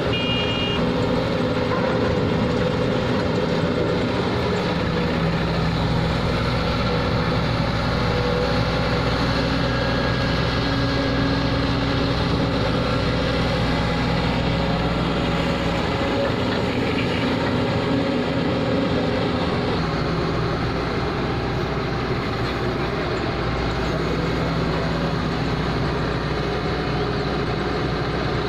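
Heavy diesel engines of a Kobelco excavator and trucks running steadily, the engine note shifting a few times as the load changes.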